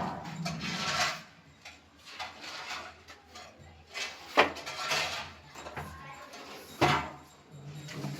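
Scraping and clattering of hand-worked objects, with two sharp knocks, one about four seconds in and one near seven seconds.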